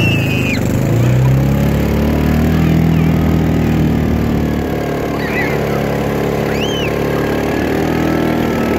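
ATV engine running steadily while towing sleds through snow, its pitch drifting slightly up and down.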